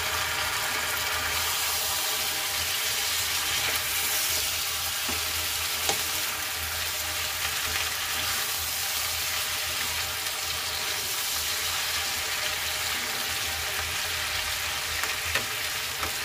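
Hot oil sizzling with a steady hiss as wet, water-soaked small brinjals fry with onions in a nonstick pan, the water on them spitting in the oil. A few light knocks are heard.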